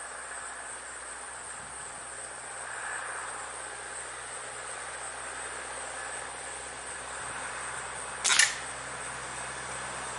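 A single shot from a Diana Trail Scout .177 CO2 air rifle about eight seconds in: one short, sharp pop, the loudest sound here, over steady insect chirring.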